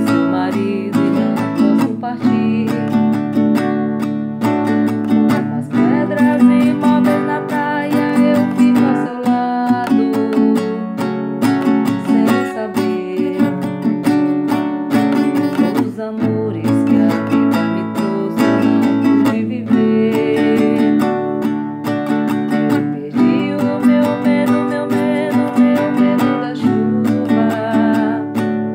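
Acoustic guitar strummed in a steady rhythm of chords, played by a beginner.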